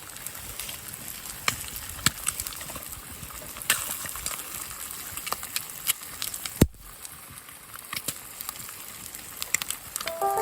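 Campfire cooking with a frying pan over the flames: a steady hiss with scattered sharp crackles and pops, and one louder snap a little past the middle.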